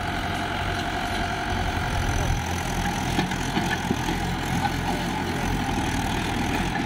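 Swaraj 843 XM tractor's three-cylinder diesel engine running with a steady note.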